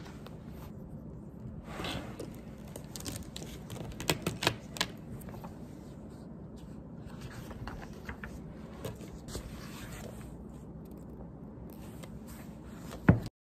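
Paper pages of a thick textbook being turned and flipped, rustling and sliding against each other, with a few sharp clicks and taps about four seconds in and one loud knock just before the end.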